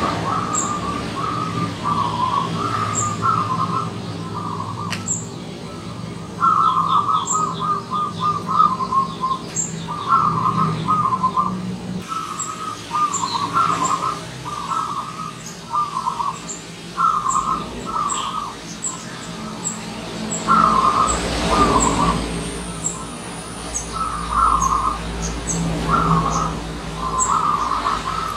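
Zebra dove cooing its song: short bursts of rapid staccato notes, repeated every second or two with brief pauses. Short high chirps sound above it.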